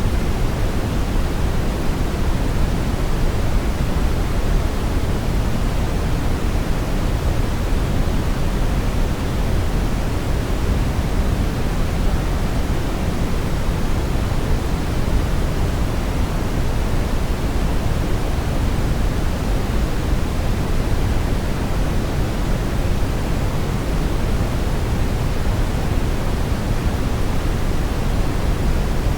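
Steady brown noise: an even, unbroken rush with its weight in the deep bass, thinning toward the top, at a constant level.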